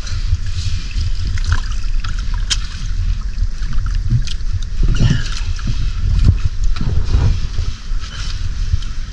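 Seawater splashing and lapping against an outrigger fishing boat's hull as a wet net is hauled up over the side, water streaming off the mesh. Wind buffets the microphone with a heavy rumble.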